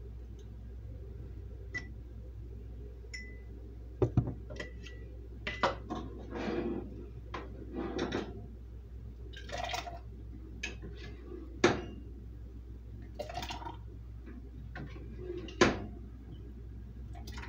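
Metal ladle clinking and scraping against a stainless steel jam pot and a canning funnel as hot jam is ladled into glass canning jars, with a few sharp clinks, the loudest near the end. A steady low hum runs underneath.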